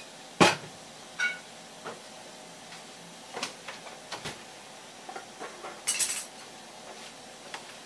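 Tableware being handled off-screen: a sharp knock, then a short ringing chink, several lighter clicks, and a brief scraping rustle about six seconds in.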